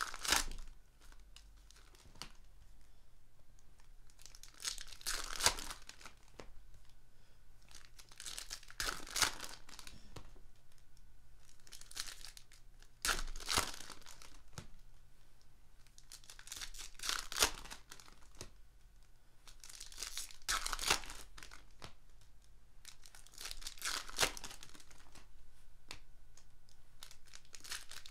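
Foil trading-card packs (Panini Prizm retail packs) being torn open one after another: a short crinkly rip every three to four seconds, about eight in all.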